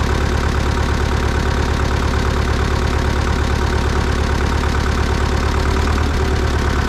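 Farm tractor engine idling steadily with an even, fast pulsing beat and no change in speed.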